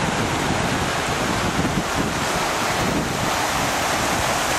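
A creek rushing steadily over rocks, with wind buffeting the microphone in uneven low rumbles.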